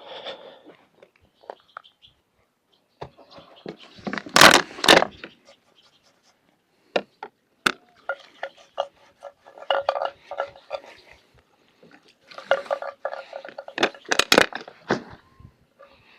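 Cooking utensils and dishes being handled: scattered clinks, knocks and scrapes, with two louder bursts of handling about four and fourteen seconds in.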